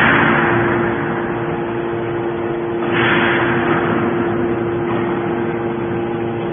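Hydraulic scrap baler running: a steady hum from its pump and motor with a held tone, and a rush of hissing noise that swells and fades about three seconds in.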